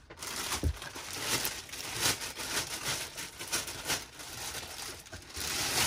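Clear plastic bag crinkling and rustling irregularly as it is handled and pulled off a bait boat. There is a low knock just under a second in.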